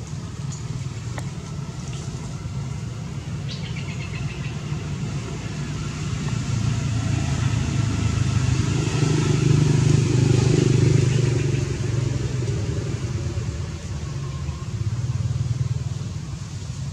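Low, steady hum of a motor vehicle engine, growing louder to a peak about ten seconds in and then fading, with a smaller swell near the end.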